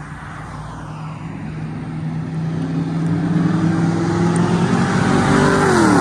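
A car approaching and passing close by, growing steadily louder, its engine tone dropping in pitch as it goes past near the end.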